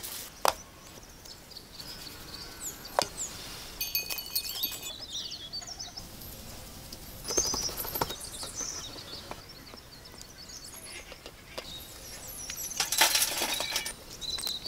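Birds chirping in the background, with scattered sharp clicks and knocks of handling on metal trays and bowls. Near the end a brief, louder clinking and scraping burst, as hot charcoal is spread over a metal tray lid.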